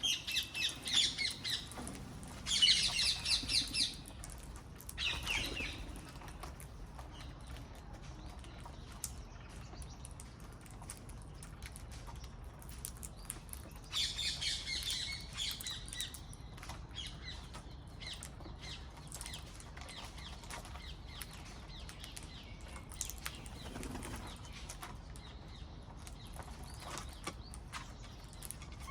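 Parrots calling in short bursts of rapid, high-pitched chattering, loudest in four bursts, the last about halfway through, with quieter calls between.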